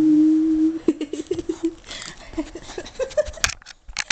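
A steady held hum that stops about a second in, followed by a run of short, quick vocal sounds like giggling. Near the end come several sharp clicks, with the jingle of a dog's metal collar tag as the miniature schnauzer moves close to the microphone.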